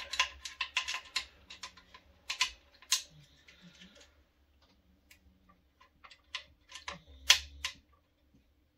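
Ratcheting wrench clicking quickly and evenly while tightening the 9 mm nuts behind a sheet-metal frame. Then come scattered lighter metal clicks, and one sharper knock about seven seconds in.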